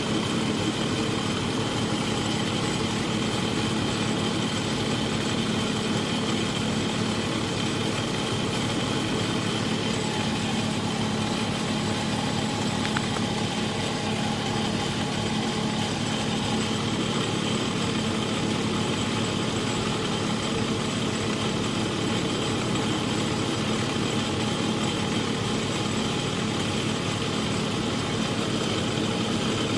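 Small lathe running steadily with an even motor hum and a faint high whine, turning a bushing.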